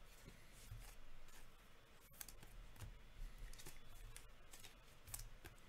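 Faint crinkles and light clicks of trading cards and thin plastic card sleeves being handled, scattered irregularly, over a low steady hum.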